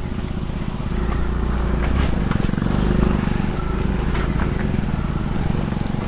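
Motor scooter's small engine running under load while it is pushed from behind to help it along, its level swelling a little about a second in.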